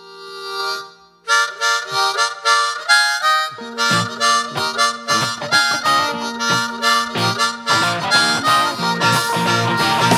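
Blues harmonica played into a microphone: a held chord swells, then short rhythmic phrases begin about a second in. A band joins underneath at about four seconds with regular drum beats and a low held note, and grows fuller near the end.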